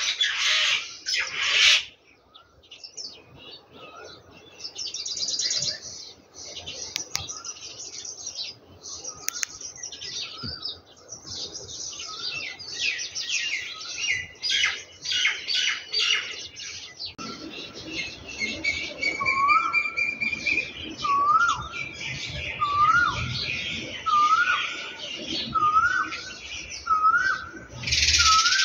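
Birds chirping and twittering throughout, with one bird repeating a short rising call about once a second in the second half. At the very start and again at the end, louder scraping of a spatula stirring taro and meat in a pan.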